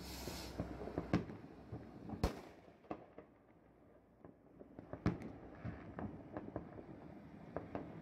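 Fireworks going off across the city: scattered bangs and pops, the loudest about two seconds in, with a short lull in the middle.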